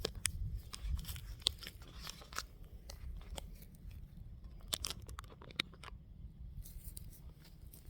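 Footsteps and handling noise: scattered faint clicks, crunches and rustles over a low steady rumble, with no gunshots.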